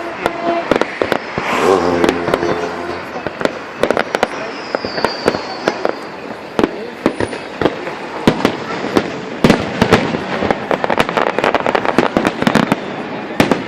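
Fireworks salute: a rapid, irregular series of bangs and crackles, crowding together in the last few seconds.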